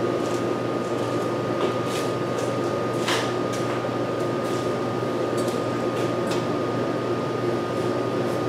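Steady fan-like hum with a thin steady whine, and a few light clinks and knocks of hand work in an engine bay, the clearest about three seconds in.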